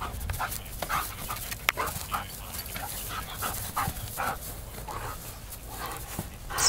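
German Shepherd dog panting hard in quick, rhythmic breaths, about two a second, with a louder sharp burst near the end.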